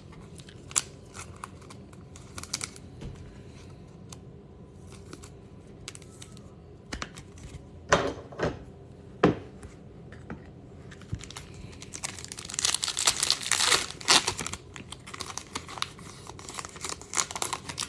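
Trading card pack wrappers being torn open and crinkled, with scattered sharp crackles and a dense stretch of crinkling about two-thirds of the way through.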